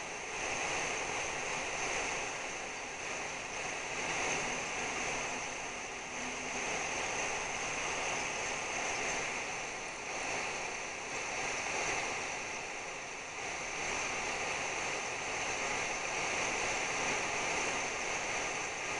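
Steady rushing hiss of outdoor background noise from a trackside stream microphone, swelling and easing every couple of seconds, with no train passing.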